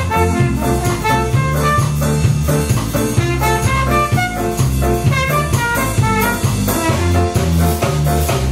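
Live band music: a trumpet plays a quick run of melody notes over a repeating bass line, keyboard and drum kit.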